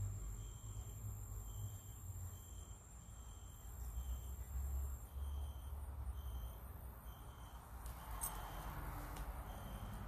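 Insects chirping outdoors: short high chirps about once a second, with a steady thin high whine that stops about halfway, over a low uneven rumble. A brief click and a short swell of hiss come near the end.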